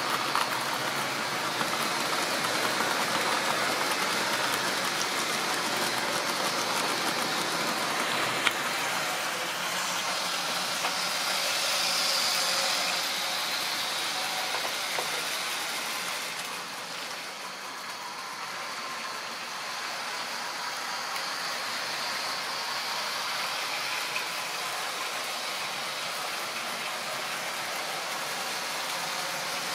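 Model railway train running on the layout's track: a steady mechanical rattle and whir from the locomotive's motor and the wagons' wheels on the rails, a little quieter about halfway through.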